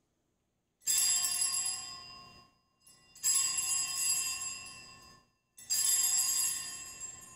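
Altar bells rung three times at the elevation of the consecrated host, about two and a half seconds apart, each ring fading out before the next.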